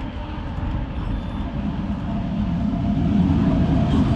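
Gusty wind rumbling on the microphone while riding a mountain bike, growing louder toward the end.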